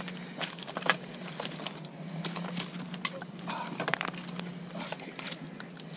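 Irregular knocks, clicks and rustles as a landing net holding a carp is hauled out of the water and set down on a gravel bank. There is a cluster of sharp knocks about four seconds in.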